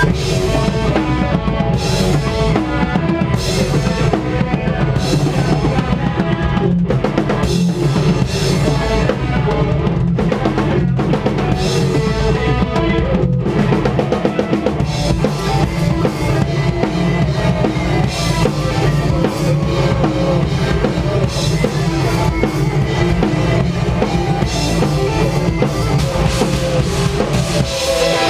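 A post-hardcore band playing live and loud, with the drum kit to the fore: bass drum and snare driving under dense, sustained instruments and frequent cymbal hits.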